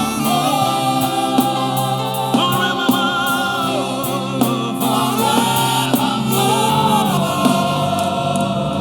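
Gospel choir and congregation singing a praise song over a band, with sharp drum hits every second or so.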